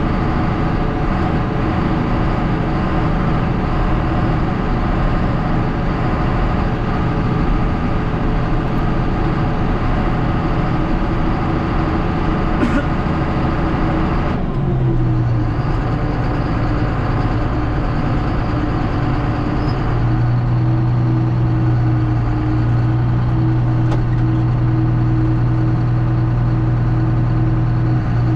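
A heavy farm vehicle's engine running steadily. About halfway through, a noisy layer over it drops away and the engine settles into a steady hum.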